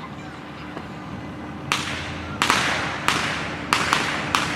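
Fireworks going off: after a low rumble, about seven sharp bangs come in an irregular series from a bit under two seconds in, each one echoing away.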